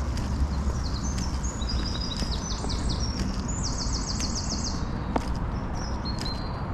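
Songbirds singing, with a run of rapid high trilled notes through the middle, over footsteps on a soft dirt path, which give regular soft clicks. A steady low rumble sits underneath.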